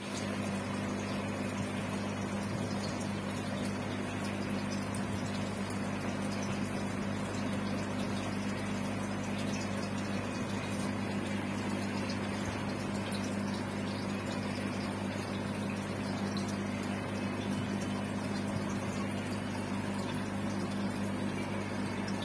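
Aquarium air pump humming steadily, with water bubbling from the aeration in the tank.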